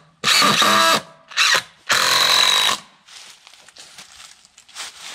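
A power drill running in three short bursts, the last and longest about two seconds in.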